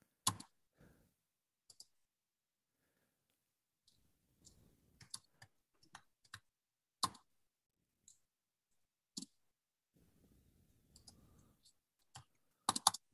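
Computer mouse and keyboard clicks while someone searches the web: about a dozen sharp single clicks spread unevenly over the seconds, with a quick pair near the end.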